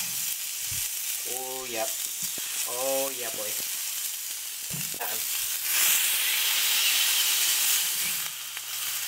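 Smash-burger balls of ground beef sizzling on a piping hot cast iron griddle. The sizzle grows louder about six seconds in, as the patties are pressed flat with a spatula.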